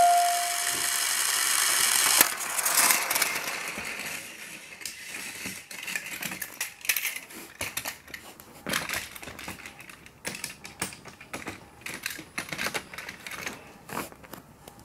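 Plarail plastic toy train running on its track, a rapid irregular clicking and clattering that grows fainter as it moves away. The last note of an electronic organ melody dies away at the very start.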